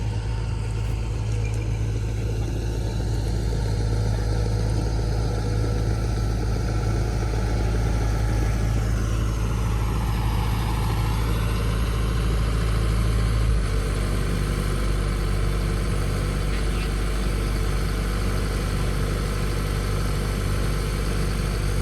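Harvest machine's engine running steadily with a low, even hum; its note shifts about two-thirds of the way through.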